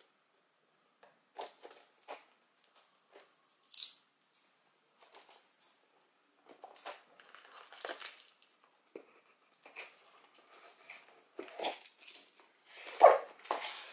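A cardboard diamond-painting kit box handled on a table: scattered taps, slides and rustles, with a sharp high scrape about 4 s in. Near the end the box's end flap is worked open, with the loudest cardboard crinkling.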